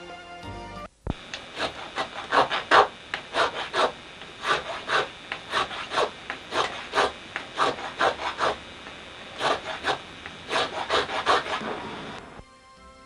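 Hand carving chisel scraping and paring a small wooden netsuke in short, rhythmic strokes that come in bursts of two to four. Soft music plays for about the first second and again near the end.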